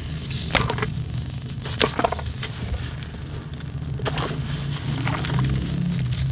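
A wet sand-cement chunk coated in black charcoal paste being crushed by hand, giving several sharp cracks and crunches as pieces break away, over a steady low hum.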